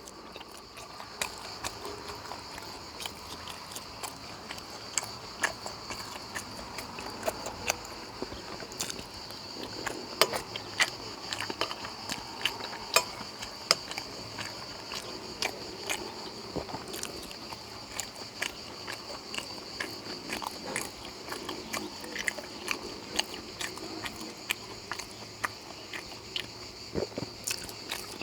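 Close-up eating sounds: irregular clicks and taps of cutlery on a plate, with mouth sounds from chewing, several every second, over a steady high-pitched whine.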